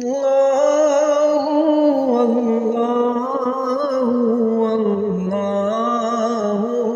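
Islamic ringtone for Ramadan suhoor time: a slow, chant-like melodic line that wavers and glides in pitch throughout, with no break.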